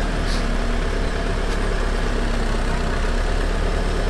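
Off-road 4x4 engine running steadily at low revs, near idle, while the vehicle is slowly repositioned on a rock ledge.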